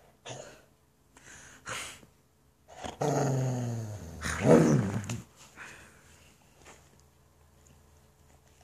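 A pet dog vocalizing for attention: a few short breathy sounds, then a long wavering call of about two seconds that rises in pitch near its end.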